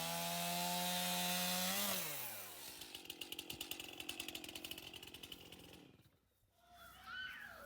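Gas engine of a Woodland Mills HM126 portable sawmill running at high speed, then dropping in pitch about two seconds in as it throttles back to a rapid, even chugging, before cutting off about six seconds in.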